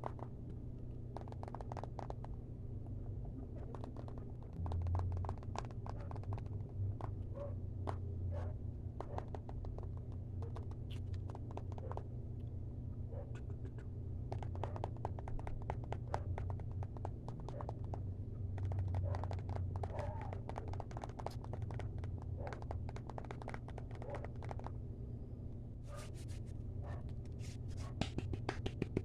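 Fast ASMR tapping and scratching close to the microphone: dense, irregular crisp clicks in clusters with short pauses, over a steady low hum.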